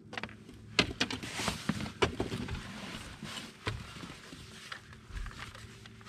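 Handling noise on a bass boat's deck: a few sharp knocks and bumps with clothing rustle between them, over a faint steady hum.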